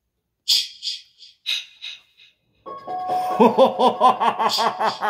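Six short, bright bell-like hits in two groups of three, then from a little under three seconds in a deep, rhythmic ha-ha-ha laugh over a steady musical tone.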